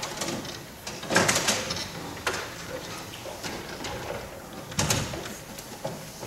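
Knocks and scrapes of chairs and desks being moved and set down on a stage in the dark: a cluster of clatter about a second in, a single knock a little after two seconds, and another louder knock near five seconds.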